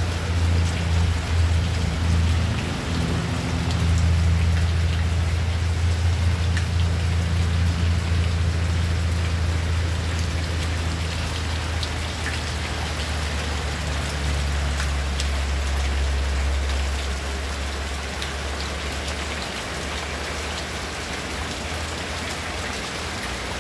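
Heavy tropical rain falling on grass, leaves and concrete, with water pouring off a roof edge and splashing onto the ground. A low rumble runs underneath and fades in the last few seconds.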